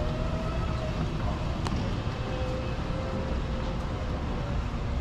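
Steady low rumble of a large exhibition hall's background noise, with a faint drawn-out tone and one sharp click a little under two seconds in.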